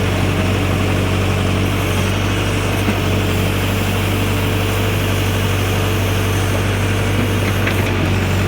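Backhoe's diesel engine running steadily at an even pitch, a strong low hum with a steady higher tone over it.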